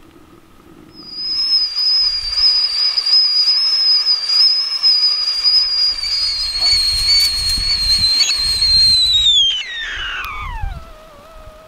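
Kettle whistle shrilling at the boil: one high, steady tone that holds for about eight seconds, then glides down in pitch and fades near the end. Some low rumbling runs underneath.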